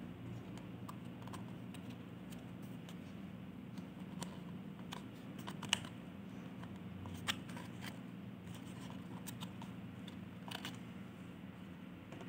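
Light, scattered clicks and taps of a small clear plastic container and its lid being handled and turned in the hands, with a couple of sharper clicks about halfway through, over a steady low hum.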